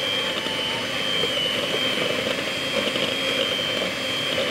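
Electric hand mixer running steadily at its lowest speed with a constant high-pitched motor whine, its beaters churning flour and water into dough in a glass bowl.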